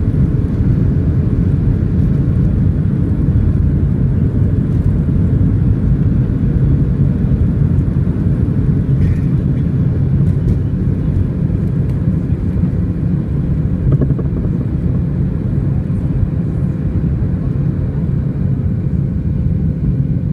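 Cabin noise of a Boeing 737-600 on its takeoff run: the CFM56-7B turbofans at takeoff power with a loud, steady, deep rumble from the wheels on the runway. The rumble eases slightly in the last few seconds as the jet lifts off.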